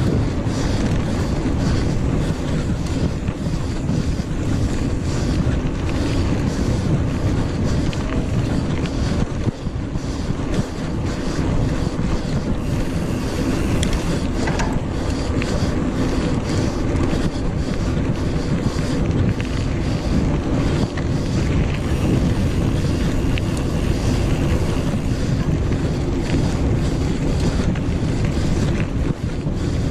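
Wind buffeting the microphone of a handlebar-mounted action camera, with mountain bike tyres rolling over a dusty dirt track: a steady, loud rumble with scattered faint ticks.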